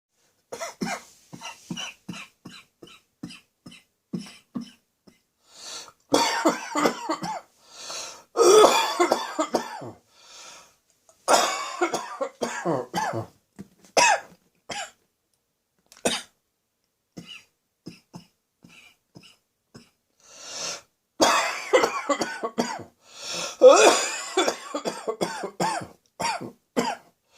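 A person's chesty, barking cough, coming in repeated fits. It starts with a run of short, light coughs, then breaks into several harder bouts of rapid coughing with pauses between them; the loudest bouts come near the end. This is a lingering cough that has not yet fully cleared.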